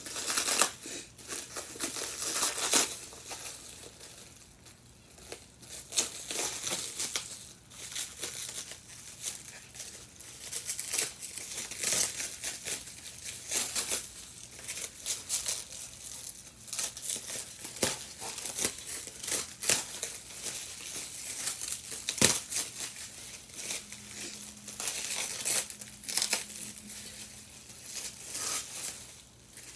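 Packaging being handled and unwrapped: crinkling wrapping and rustling foam packing peanuts in irregular bursts, with an occasional sharp knock.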